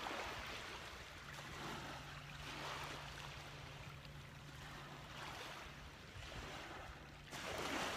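Ocean waves washing onto a sandy beach, the surf swelling and fading every couple of seconds, with the loudest surge near the end.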